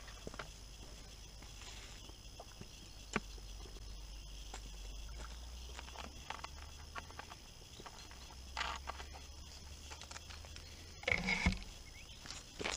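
Wind buffeting the microphone as a steady low rumble, with faint footsteps on a dirt road and scattered small clicks, one sharp click about three seconds in. A short louder noise comes near the end.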